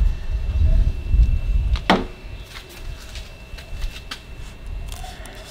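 Low rumble for the first second or so, then a sharp clack about two seconds in and a few light clicks and taps: handling noises of plates and cooking gear.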